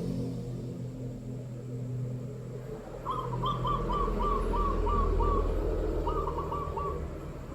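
A kacor bird calling: a fast run of about eight short, clipped notes about three seconds in, then a shorter phrase of the same notes a few seconds later. A steady low hum sits beneath.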